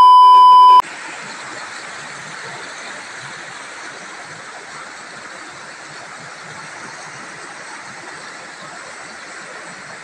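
A loud, steady test-tone beep of the kind that goes with TV colour bars, cut off after under a second. Then the steady rush of a shallow river running over rocks and small rapids.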